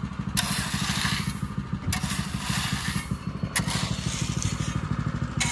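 A rake scrapes through crushed stone in four strokes about a second long, over a small engine running steadily.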